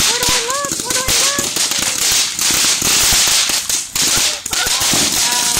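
Several ground fountain fireworks spraying sparks: a steady loud hiss laced with dense crackling.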